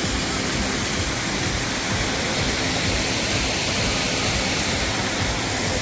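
Steady rush of a tall waterfall in strong flow, an even unbroken roar of falling water.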